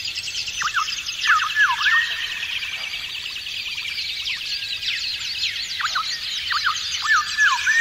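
Garden birds singing: a dense, high twittering chorus throughout, with a lower phrase of quick sweeping whistled notes heard twice, about a second in and again near the end.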